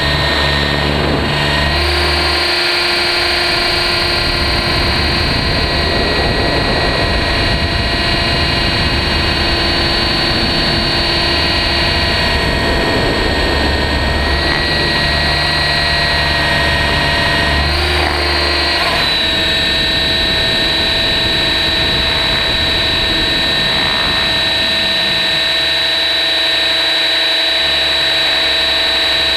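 RC helicopter's motor and rotors running in flight, heard close-up from a camera mounted on the helicopter: a loud, steady whine over a rushing noise, its pitch shifting slightly about two seconds in and again a little past halfway as the helicopter manoeuvres.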